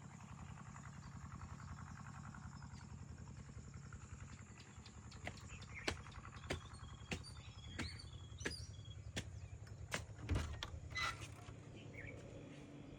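Outdoor ambience: a steady low hum under a run of sharp clicks and short chirps between about five and eleven seconds in.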